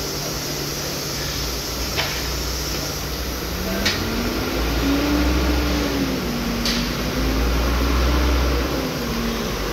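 Steady low machinery hum with a wavering tone that comes in after about three and a half seconds and drifts up and down until near the end, and three short sharp clicks along the way.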